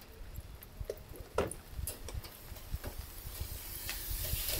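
Light clicks and knocks as the Nissan Leaf's front charge-port lid is lifted open, with a hiss of rain growing louder near the end.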